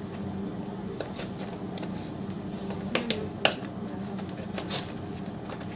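Cardboard food box being torn open by hand: a few sharp clicks and scrapes of card as the flap is pried loose, over a steady low hum.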